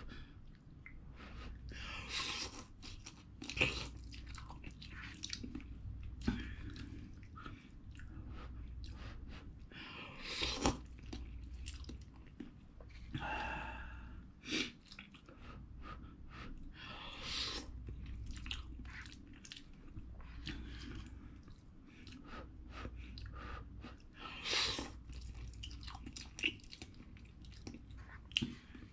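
A man eating cup ramen noodles with chopsticks: close-up chewing with repeated slurps, the longer slurps coming every few seconds.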